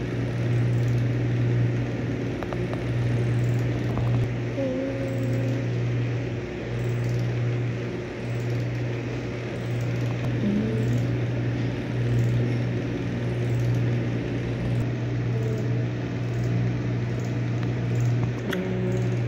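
A steady low mechanical hum over a constant hiss.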